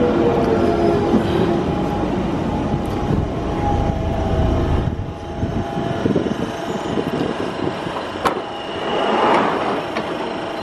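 London Underground 1992 Stock train drawing to a stop at the platform. Its motor whine falls in pitch and the rumble dies away over the first few seconds, leaving a steady hum. About eight seconds in there is a sharp click and then a short rush of noise as the doors open.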